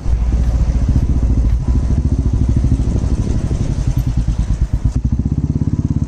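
Royal Enfield motorcycle engine running with a rapid, steady low beat.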